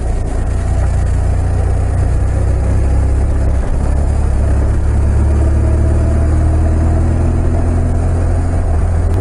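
BMW R 1200 RT's boxer-twin engine running while riding, under a heavy low rumble; the engine note climbs slightly in the second half.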